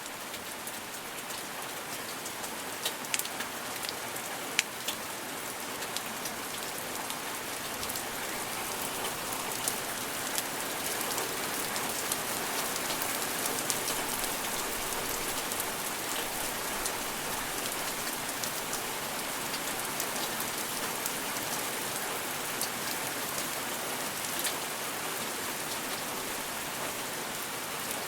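Steady rain falling, an even hiss with many sharp drops ticking on a hard surface close by.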